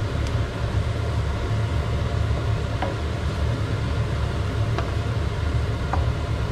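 Kitchen exhaust fan running with a steady low hum, with a few light scrapes of a wooden spatula stirring spices and onions in a stainless steel frying pan.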